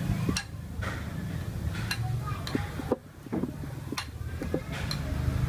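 A kitchen knife knocking against a wooden cutting board: about half a dozen sharp, irregular taps.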